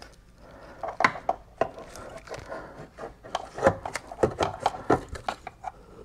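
Hands working a seat belt retractor down into its mounting inside a car's body panel: a string of irregular clicks, knocks and rubbing.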